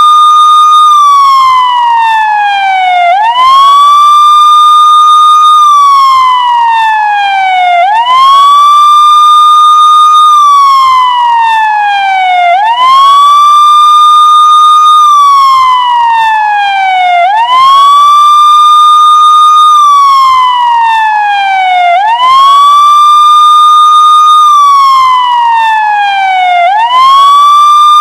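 Police car siren wailing in a steady repeating cycle: the pitch sweeps up quickly, holds at the top for about a second, then slides slowly down, about every four and a half seconds.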